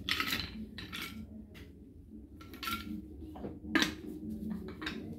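Clinks and knocks of kitchen items handled on a tiled counter: a small metal grater on a china saucer and a wooden spice canister being picked up and set down. A short ringing clink near three seconds in and a sharp knock just before four seconds in.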